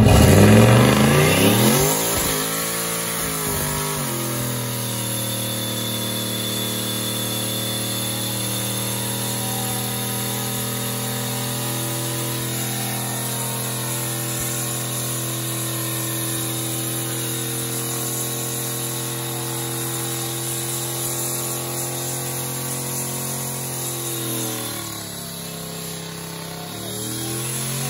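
Square-body Chevrolet pickup's engine doing a burnout: it revs up over the first few seconds and is held at high, steady revs for about twenty seconds. Near the end the revs drop, then climb again.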